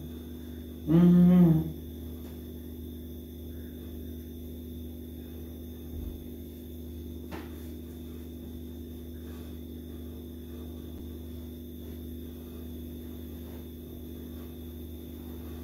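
Steady electrical hum with a faint high whine, broken about a second in by a brief voiced sound from a person, and by a single soft click about seven seconds in.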